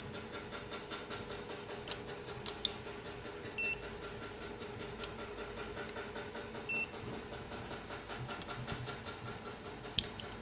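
Handheld coating thickness gauge giving two short electronic beeps about three seconds apart as it takes readings on a coated steel sample, with a few light clicks of the probe and sample being handled.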